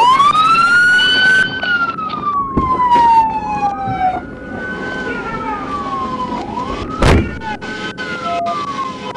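Police car siren on wail, rising and falling slowly in long sweeps, with a single sharp knock about seven seconds in.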